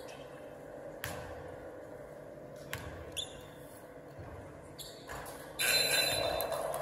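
A basketball thudding a few times on a hardwood gym floor, each thud echoing in the hall. About a second before the end a burst of crowd voices and shouting comes in suddenly and stays loud.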